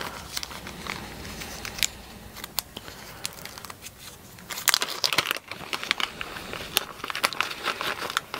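Small clear plastic parts bag crinkling and crackling in the hands, with scattered sharp crackles that are densest about halfway through.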